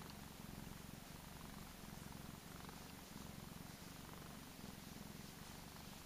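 Persian cat purring with a low, steady purr that rises and falls breath by breath, content while its chin is scratched.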